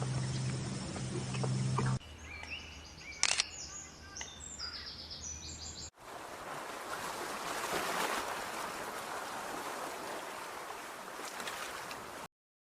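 Outdoor nature sound in three cut-together sections. First a low steady hum with scattered clicks, then a few seconds of short high bird chirps, then an even rushing noise that stops abruptly near the end.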